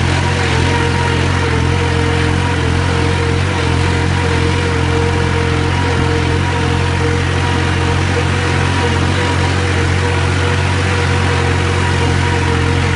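New Holland tractor's diesel engine running at a steady speed, heard from the driver's seat.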